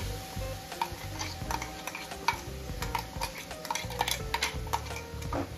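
Metal spoon tapping and scraping against a small steel jar and the kadhai rim, knocking crushed ginger-garlic-green chilli paste into hot butter: a steady run of sharp clicks and knocks.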